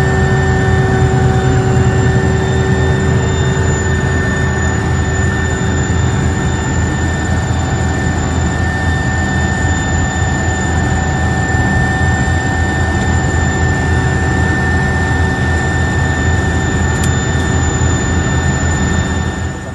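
Cabin noise inside a turbine helicopter in flight: a steady, loud drone of engines and rotor with several fixed high whine tones above it.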